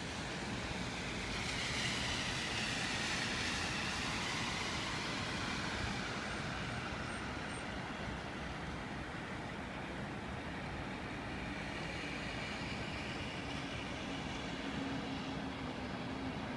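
City traffic noise, a steady rush of vehicles, swelling as one passes close by in the first few seconds.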